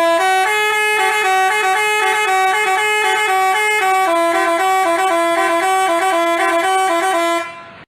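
Telolet multi-tone bus horn of the Basuri type playing a fast tune, two notes sounding together and changing pitch several times a second; it fades out near the end.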